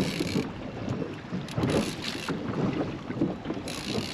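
Fishing reel's drag buzzing in two short runs, one ending about half a second in and one starting near the end, as a hooked fish pulls line off, over wind buffeting the microphone.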